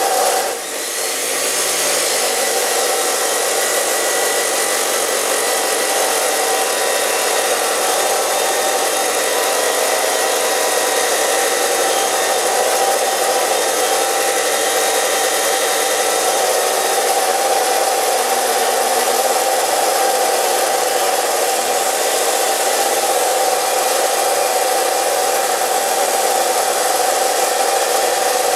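Abrasive cut-off saw cutting through steel: a loud, steady hiss with a strong steady tone, starting abruptly, with a brief dip about a second in.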